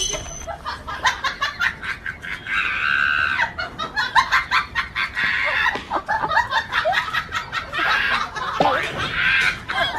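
Chickens clucking in quick, short calls, with longer calls about two and a half seconds in and again near the end.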